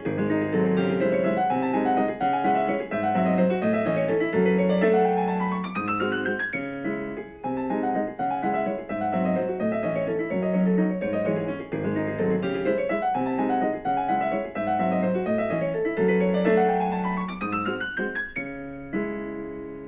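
Background piano music: a repeating phrase with rising runs up the keyboard, fading out at the very end.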